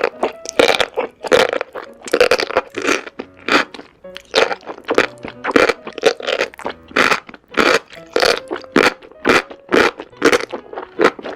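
Close-miked crunchy bites and chewing of food, about two crisp crunches a second, over soft background music.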